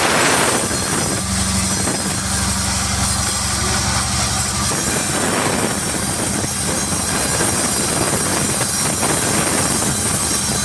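Sawmill machinery running steadily: an engine hum under a loud, even hiss, with a brief louder surge at the very start.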